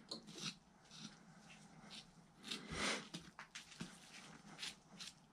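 Faint handling noises of a raccoon hide being pulled and cut off the carcass: soft scattered rustles and small clicks, with one louder rush of noise about three seconds in.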